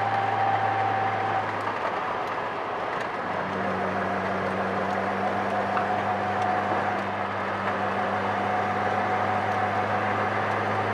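1978 Datsun 280Z's straight-six engine running steadily, heard from inside the cabin, with a thin steady whine above it. About two seconds in the engine note briefly eases off, then settles back to a steady pull.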